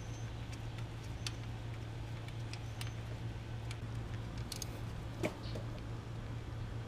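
Light scattered clicks and taps of hand tools and small metal parts being handled, with one sharper knock about five seconds in, over a steady low hum.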